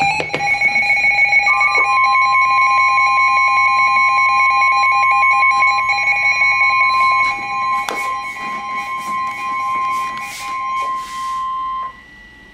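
Emergency Alert System attention signal: loud, steady electronic alert tones held for about ten seconds, with a second tone joining about a second and a half in. The tones cut off one after the other near the end.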